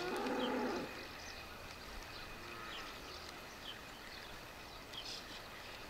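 Quiet rural ambience with a few short, high bird chirps scattered through it.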